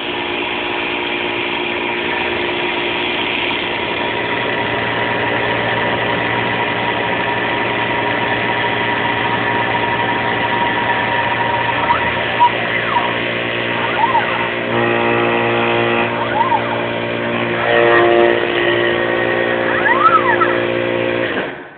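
CNC lathe running under LinuxCNC control: a steady motor hum and whine made of several held tones. Short rising and falling pitch glides come in near the middle and near the end, and the tone pattern changes about two-thirds of the way in as the axes move and change speed.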